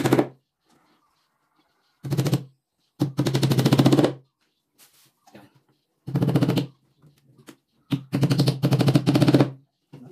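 Cordless drill driving screws into plywood, in several short bursts of rapid rattling with the motor's hum underneath, stopping and starting between screws.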